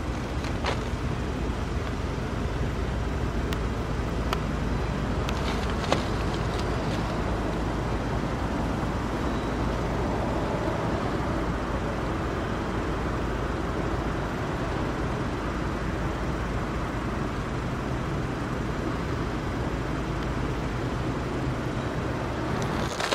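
Cars driving over a railroad grade crossing, with a few sharp clicks from tyres crossing the rails a few seconds in, over the low steady hum of a diesel freight locomotive running nearby.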